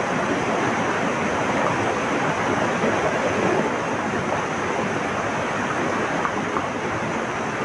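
Flowing water rushing steadily, an even wash of noise with no distinct splashes.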